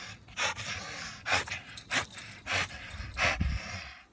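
American Bully dog panting hard, loud sharp breaths about one every two-thirds of a second.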